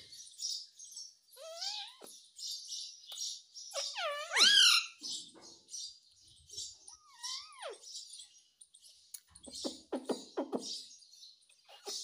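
Indian ringneck parakeet calling: a steady high twittering underneath, with several louder whistled calls that swoop up and then fall in pitch, the loudest about four seconds in. Near ten seconds comes a short run of quick, lower chattering notes.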